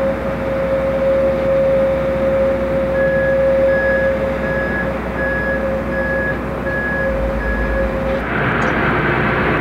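An airliner's jet engines running at taxi power with a steady whine. From about three seconds in, a vehicle warning beeper sounds about twice a second. Near the end the sound changes abruptly to a brighter engine hiss.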